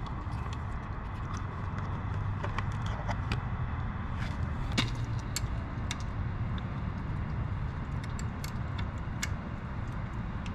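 Scattered light metallic clicks and taps of an Allen key and fasteners worked by hand on a motorcycle's side panels, the sharpest a little under five seconds in, over a steady low hum.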